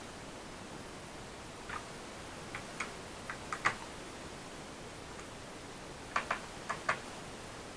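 Light, sharp clicks and taps of small laptop parts and tools being handled, coming in small clusters over a steady hiss.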